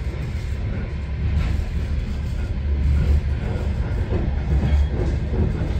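Passenger train running at speed, heard from inside the carriage: a steady, deep rumble of the wheels on the rails.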